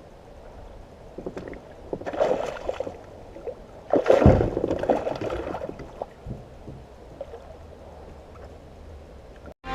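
Water splashing and sloshing around a fishing kayak, in two louder bursts about two and four seconds in, over a steady low background of moving water.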